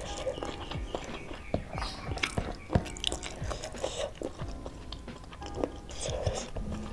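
A person chewing a mouthful of food, with many small wet clicks and smacks, as fingers pick up more rice and spicy beef from the plate.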